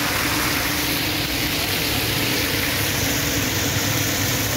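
Fish deep-frying in a large karahi of hot oil: a steady sizzle over a constant low rumble.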